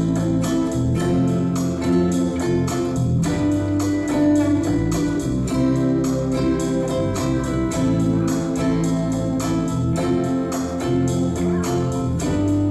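A band playing the instrumental intro of a rock song, with guitar over a steady drum beat and bass.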